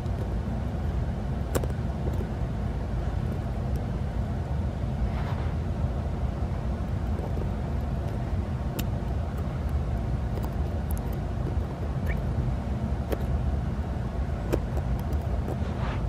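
Steady low background rumble throughout, with a few faint, sparse clicks of fine metal tweezers picking wound hair out of a Roomba extractor's bearing cap.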